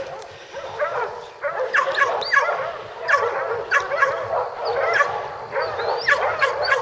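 Pack of hog-hunting dogs baying: many short overlapping barks and yips, one after another without a break. This is the sound of the dogs holding hogs at bay.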